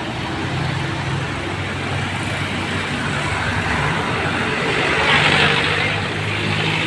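Motor vehicle engine running steadily amid roadside traffic noise.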